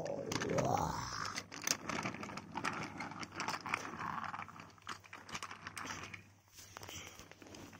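Wooden toy trains handled and pushed along a wooden track: a busy run of small clicks, knocks and rustling that dies down after about five seconds.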